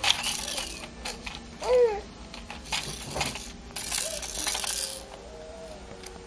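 Hard plastic baby toys on a bouncer seat rattling and clattering in several bursts as a baby plays with them, with a short baby vocal sound about two seconds in.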